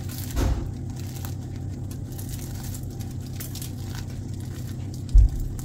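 Freshly baked, still-warm layered börek torn apart by hand, its crisp flaky layers crackling as they break and flake off, the sign of a crisp, mille-feuille-like pastry. Two dull low thumps, one about half a second in and a louder one near the end.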